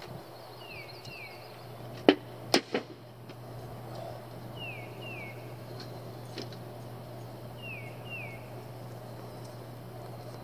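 A bird calls three times, each call a pair of short downward-sliding chirps, over a steady low hum. About two seconds in come three sharp knocks, the loudest sounds.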